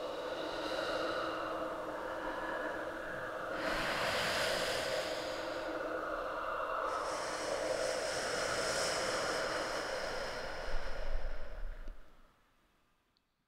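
Experimental film soundtrack of sustained drones under a breathy, hissing texture. The texture shifts a couple of times, then the sound fades out to silence near the end.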